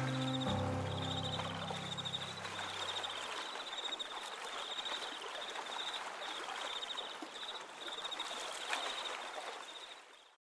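The last notes of soft instrumental music die away over the first few seconds, leaving a nature ambience. A high trilling call repeats in short pulses about once a second over a steady hiss like running water, then fades out at the end.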